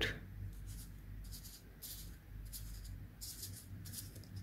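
Faint paper rustling: a stack of small stamp-shaped paper stickers being shuffled and fanned between the fingers, in a series of short, soft rustles.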